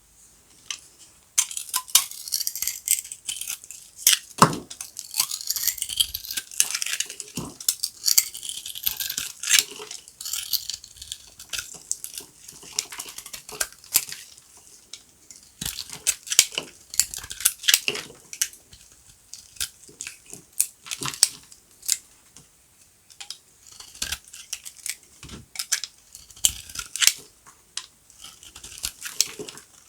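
A bar of dry, brittle soap being cut with a knife, crunching and crackling as the blade goes through and pieces snap off. The crackling starts about a second and a half in and runs on in dense spells with brief pauses.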